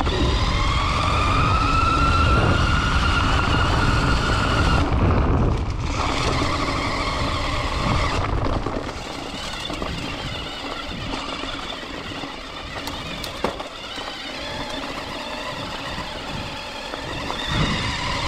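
CYC X1 Pro Gen 2 mid-drive e-bike motor whining as it drives the mountain bike on the throttle alone, its pitch rising slowly for about five seconds, then cutting out. After that, tyres rumble and rustle over the dirt trail with wind noise.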